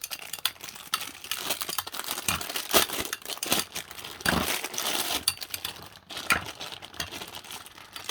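Two Beyblade Metal Fusion spinning tops, Dark Bull and Earth Eagle, battling in a stadium: a busy rattle of small clicks and scrapes with several sharper knocks as they collide.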